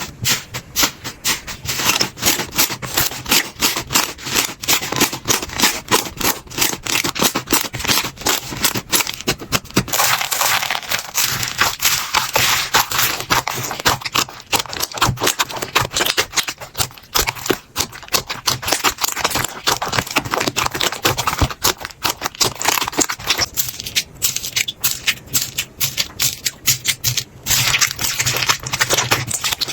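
Slime being squished and poked close to the microphone, giving a dense run of rapid crackling, popping clicks. The texture changes about a third of the way in and again near the end.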